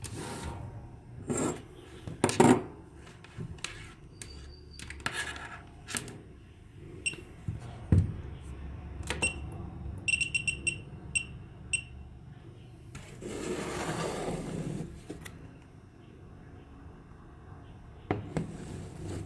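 Scattered clicks and knocks of objects being handled, with a quick run of about six short, high beeps about ten seconds in and a brief hiss a few seconds later.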